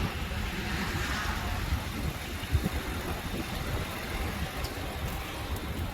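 Steady in-cabin rumble of a car driving on a snowy highway, low road and engine noise under an even hiss.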